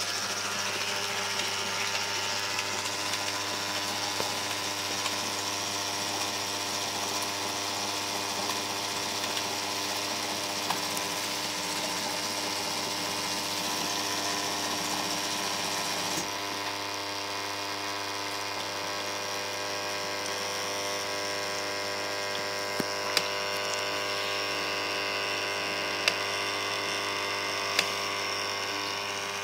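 Siemens dishwasher running with a steady machine hum made of several steady tones, with a few faint clicks in the last third.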